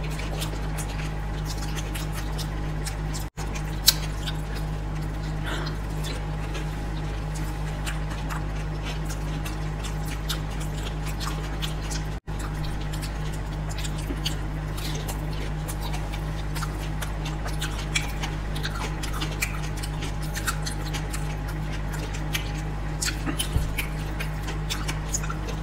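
Close-miked eating of dahi puri: crisp puri shells cracking and curd filling squishing as they are chewed, heard as many small scattered clicks and wet mouth sounds, busier near the end. A steady low electrical hum sits underneath.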